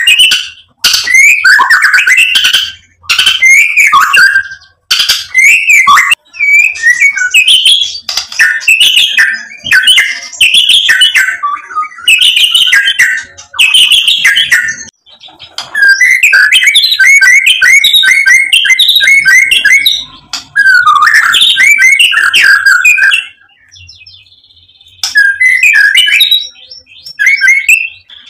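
Male white-rumped shama (murai batu) in full song: loud, varied phrases of whistles and chattering notes with short pauses, a long run of quick repeated notes in the middle, and a brief lull before the song starts again near the end.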